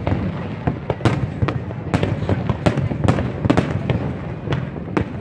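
Aerial firework shells bursting in quick succession: sharp bangs about two a second at uneven spacing over a continuous low rumble of overlapping explosions.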